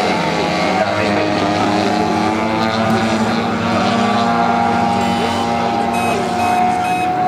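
Engine of a large radio-controlled model aerobatic aircraft running in flight, a steady drone whose pitch shifts slightly, with a sustained higher tone through the second half.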